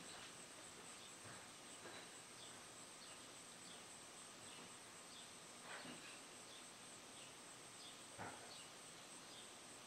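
Near silence: faint room tone with a steady high hiss and a few soft clicks.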